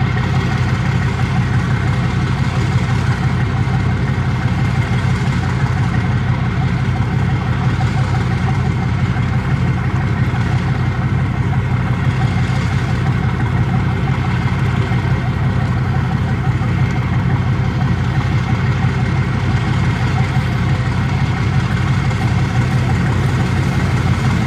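Twin diesel engines of a 20 m Japan Coast Guard patrol boat running steadily at low power, a loud, even low hum that does not change.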